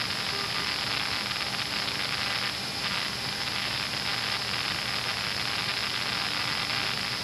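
Steady hiss of an aircraft intercom and radio audio feed between transmissions, with a faint steady hum from the aircraft under it.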